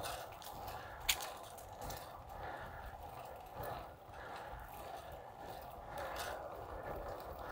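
Bicycle being ridden: steady tyre noise with the bike's drivetrain and frame ticking and rattling, and a sharp click about a second in.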